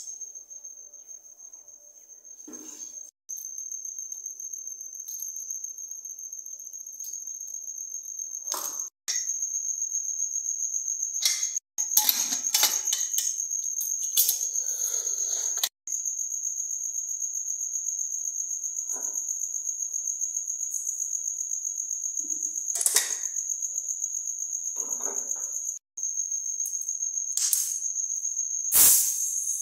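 An insect, most likely a cricket, trilling steadily at a high pitch, with a few sharp knocks and clatters of kitchen utensils being handled, the loudest near the end.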